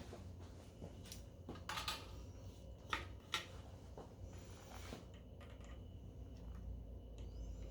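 Light clicks and taps of pliers and small metal connector parts being handled while soldering, a few sharp ones in the first half, over a low steady hum.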